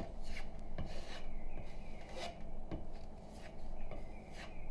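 Putty knife scraping across drywall as spackle is worked flush into a nail hole: a run of short scraping strokes, about two a second.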